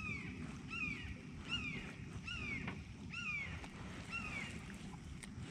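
A bird calling six times in an even series, each call a short whistled note that falls in pitch, a little under a second apart, over a steady low background rumble.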